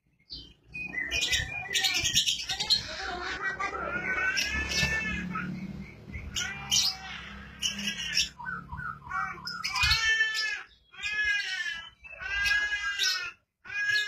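Caged lovebird chattering and calling, with shrill calls that bend up and down in pitch. In the first half the calls run together; in the last few seconds they come as separate calls about a second apart.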